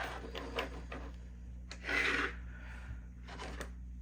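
Handling noise: small objects rubbed and scraped against a surface, in two short rubbing swells, the second about two seconds in, with a few light clicks.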